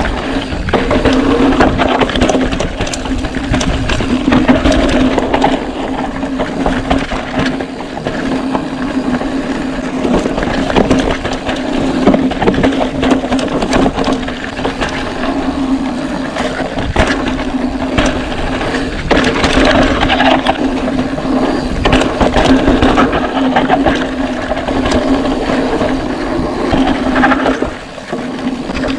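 Mountain bike clattering and rattling over a rough dirt trail at speed, tyres crunching on dirt and debris, with a steady whine from the CYC Photon electric mid-drive motor. The motor whine cuts out about a second before the end.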